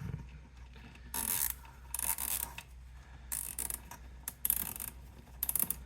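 Plastic zip ties being pulled tight through their locking heads, a ratcheting zip in about five short strokes.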